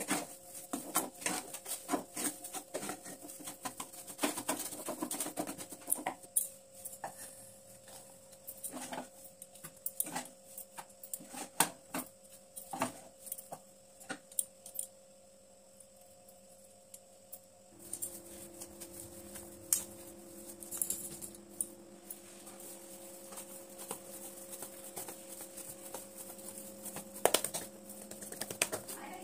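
Wooden spatula scraping and knocking in a non-stick frying pan while thick cooked semolina dough is worked together with mashed potato: a dense string of irregular scrapes and taps that thins out about halfway. Later come scattered soft handling knocks on steel dishes, one of them louder near the end, over a steady low hum.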